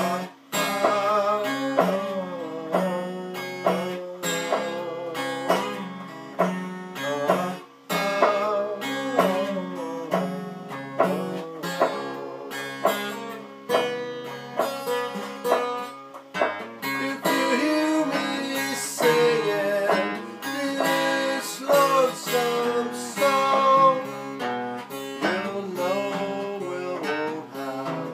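Guitar fingerpicking a blues instrumental passage: a repeated low bass note under a plucked upper melody whose notes slide and bend in pitch.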